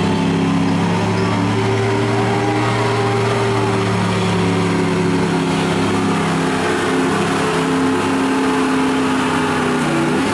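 Lifted Ford pickup's engine running hard under full load as it drags a weight-transfer pulling sled. The pitch wavers and sags as the sled bogs it down, then falls away near the end as the pull stops.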